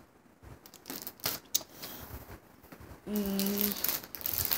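Clear plastic packaging of craft supplies crinkling and rustling as packets are handled and set down on a pile, with a short hum from a voice about three seconds in.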